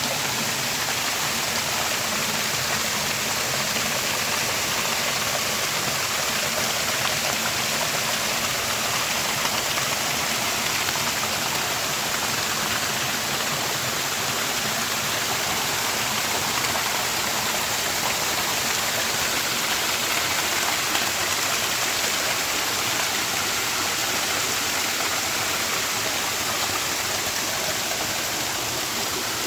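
Creek water rushing steadily over small waterfalls and cascades.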